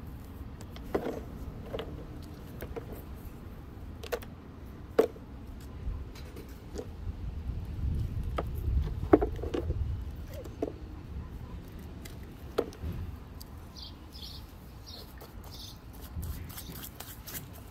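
Small fossil-bearing rocks clicking and knocking against one another and the plastic tub as they are handled and brushed in muddy water, about a dozen irregular sharp taps. Several short high chirps come near the end.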